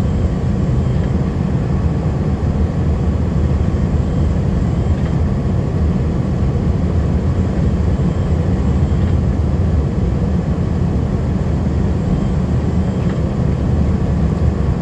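Heavy plow truck's engine and road noise heard from inside the cab: a steady low drone as the truck drives slowly through fresh snow.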